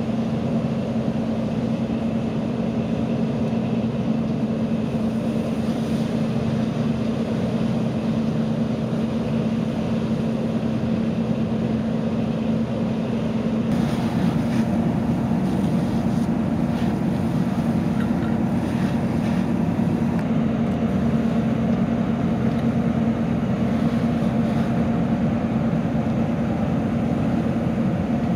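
A steady diesel engine drone with an unchanging low hum, typical of a fire engine running its pump to supply hose lines, under a rushing hiss. The hiss grows a little louder about halfway through.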